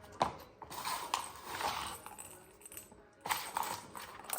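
A dog pawing at a cat toy, which clatters and rattles with several sharp clicks.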